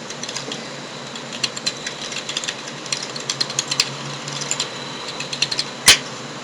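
Typing on a computer keyboard: irregular runs of quick, sharp key clicks, with one louder click near the end.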